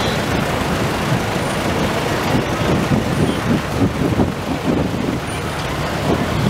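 Engines of slow-moving parade vehicles, an antique tractor and a small utility vehicle, running steadily as they pass, with an uneven, pulsing note in the middle of the stretch.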